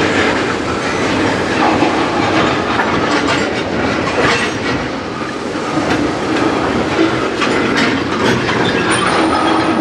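Freight train tank cars rolling slowly past, wheels clicking over the rail joints with irregular clanks and knocks from the cars as the train slows.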